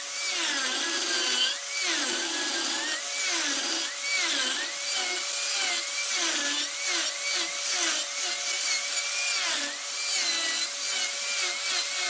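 Wood lathe turning a piece of wood while a turning tool cuts into it: a continuous hissing cut with a thin squeal that rises and falls over and over, over a steady motor hum.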